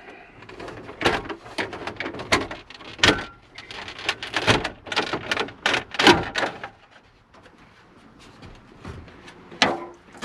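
Plastic clicks, knocks and rattles of a car-stereo part being worked and pushed into place in a truck's dashboard. There is a rapid, irregular string of sharp knocks for several seconds, then it goes quieter, with a couple more knocks near the end.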